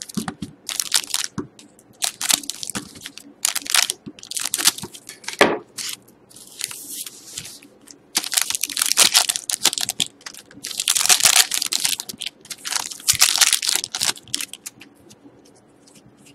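Foil trading-card pack wrappers crinkling and crackling in repeated bursts as the packs are cut open with scissors and the cards pulled out, with the longest bursts in the second half.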